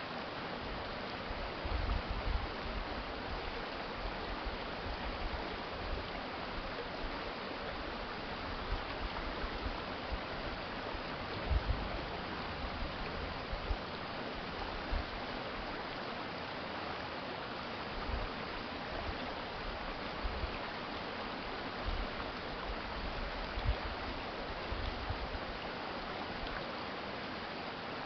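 Urban stream water flowing steadily, an even rushing, with brief low thuds every few seconds.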